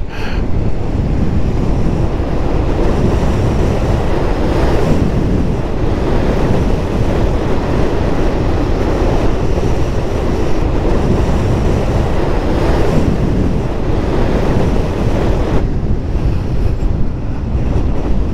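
Wind rushing over the microphone of a moving motorcycle, with the bike's engine running underneath at a steady road speed. The rush lightens a little near the end.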